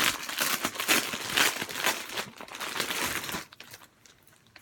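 Packaging crinkling and rustling as shirts are handled, stopping about three and a half seconds in.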